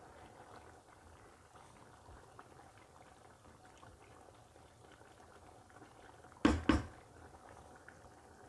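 Pot of rice and broth boiling on a gas stove: a soft, steady bubbling. About six and a half seconds in come two loud knocks in quick succession.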